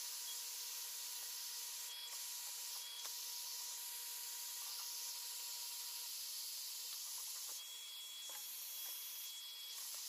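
Electric heat gun running, a steady airy hiss from its fan, while hands work vinyl wrap onto a dash panel, with a few faint ticks and rubs.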